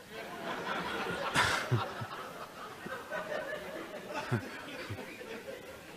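Audience laughing softly, with scattered chuckles and a brief louder burst of laughter about a second and a half in, dying down toward the end.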